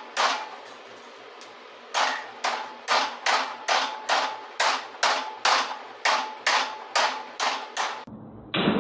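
Hammer blows on a stainless steel sheet being shaped round over a pipe. One strike comes near the start, then a steady run of about fifteen ringing blows at roughly two and a half a second.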